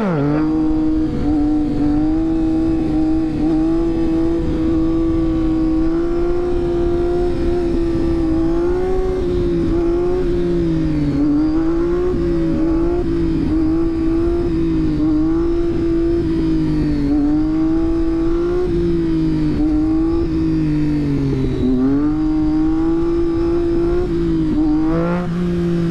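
Motorcycle engine running at a steady cruising speed under way, its pitch dipping and recovering every few seconds with small throttle changes.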